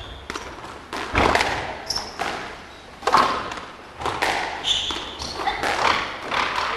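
Squash rally: the ball being struck by rackets and smacking off the front and side walls in a string of sharp hits, irregularly spaced, the loudest about a second in and about three seconds in, with reverberation from the hall.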